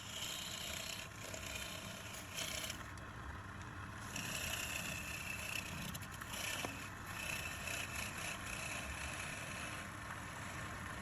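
Wood lathe running steadily while a turning tool scrapes the spinning workpiece in repeated spells of about a second, each adding a hissing cut over the motor's hum.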